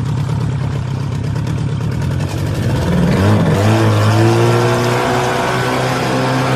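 A boat's engine running, revving up about three seconds in and then holding a steady, higher-pitched drone.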